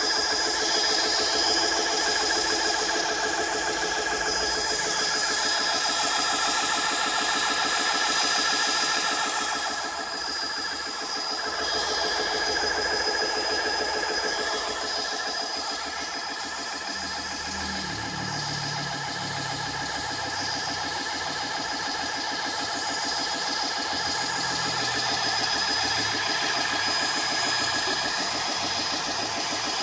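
GX CS2 electric high-pressure air (HPA) pump running steadily, a rapid even mechanical pulse with a thin high whine, as it compresses air into a .177 PCP air rifle's reservoir toward 2500 psi.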